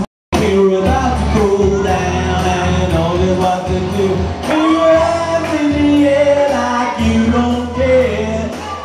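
Karaoke singing: a voice singing a melody over a recorded music backing track. The sound cuts out completely for a split second at the very start.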